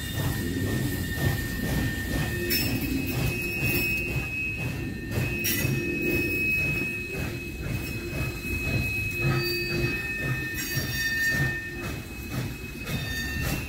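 Railroad cars rolling past with high-pitched wheel squeal, the steel wheel flanges grinding against the rail on a curve. Thin squealing tones shift in pitch now and then over a steady, rhythmic rumble of wheels on track.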